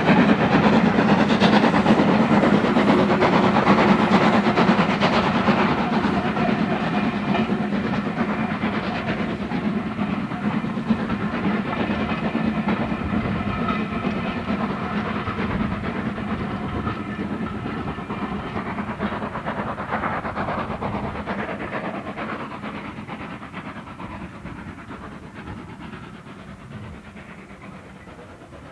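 Steam locomotive hauling a train of coaches, its exhaust beats and the rolling of the wheels on the rails fading steadily as the train draws away into the distance.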